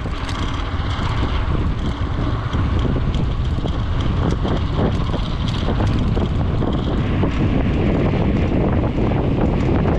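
Wind buffeting the microphone of a camera on a moving bicycle: a loud, steady, mostly low noise with no tone.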